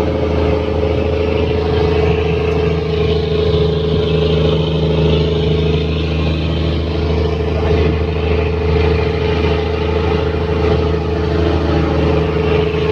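Fishing boat's inboard engine running steadily at a constant speed, a loud even drone with no change in pitch.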